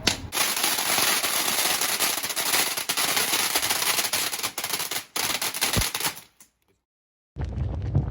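Fireworks crackling: a dense, rapid string of sharp pops and hiss that cuts off suddenly about six seconds in. Near the end a low rumble starts.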